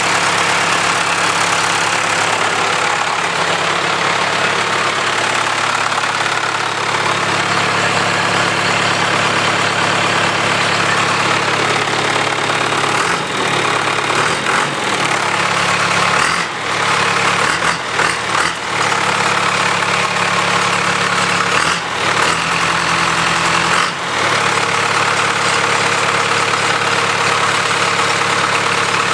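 John Deere 2550's three-cylinder diesel engine idling steadily with a loud clatter, running cold shortly after a cold start; the level dips briefly a few times in the second half.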